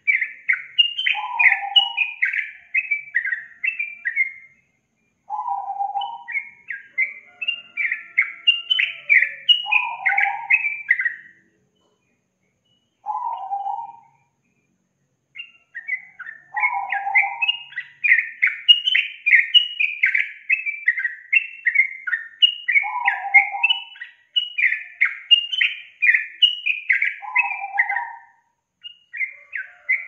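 Yellow-vented bulbul (trucukan) singing: long runs of quick, bubbling chattering notes, with a lower husky note dropped in every few seconds. The song breaks off in short pauses about five, twelve and fourteen seconds in.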